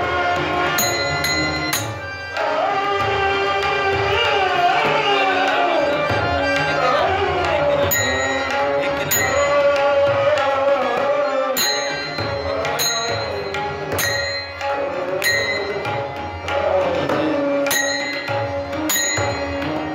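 Marathi bhajan music: tabla playing under a wavering melody line. From about eight seconds in, sharp metallic strikes ring out at a regular beat.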